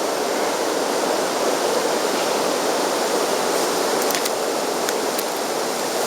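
Steady rushing noise of sea water around a kayak, with a few faint clicks about four and five seconds in.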